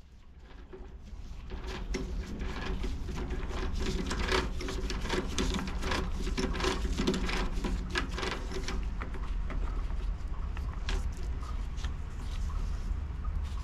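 Four-jaw lathe chuck being set up by hand with a T-handle chuck key: a busy run of small metallic clicks and scrapes as the jaw screws are turned and the workpiece is seated against the jaws, thinning out after about nine seconds, over a steady low hum.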